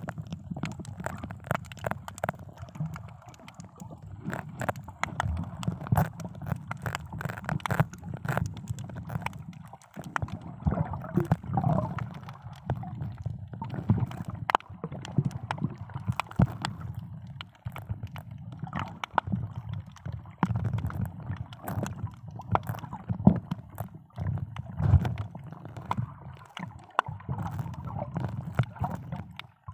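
Water heard through an underwater camera: muffled, uneven sloshing and gurgling, with many scattered clicks and crackles.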